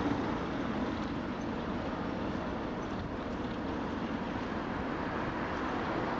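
Steady rumble of a passenger train on the move behind a British Rail Class 08 diesel shunter, with no sudden changes.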